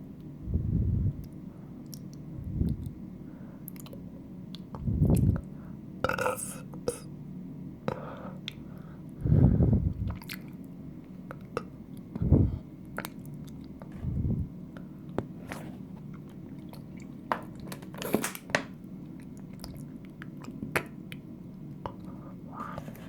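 A person gulping water: about six low swallowing gulps a few seconds apart, with small wet clicks and smacks of the mouth and throat between them.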